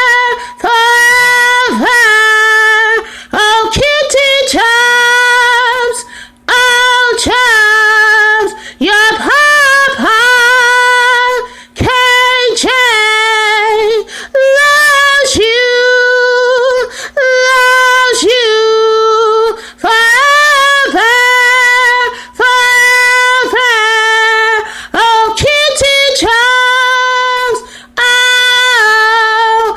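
A woman singing unaccompanied in a high voice: a run of long held notes, each lasting a second or two, separated by short breaths.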